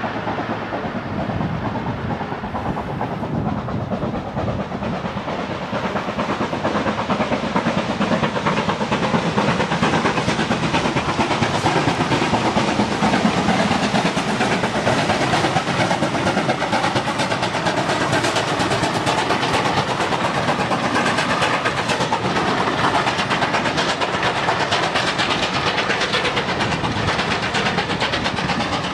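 Steam-hauled passenger train approaching and passing, the locomotive working and the coaches' wheels running on the rails; the sound grows louder over the first several seconds, then stays steady and loud.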